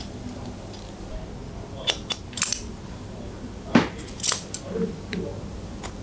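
Hair-cutting scissors snipping hair: a handful of short, sharp snips, bunched around two seconds and four seconds in, with a few fainter ones near the end.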